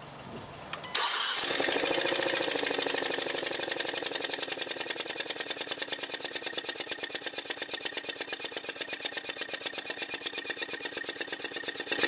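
2017 Hyundai Elantra 2.0-litre four-cylinder engine starting about a second in and settling to a steady idle, with a fast, even ticking over it. One cylinder is not firing, because its coil is firing a spark plug held outside the engine for a spark test.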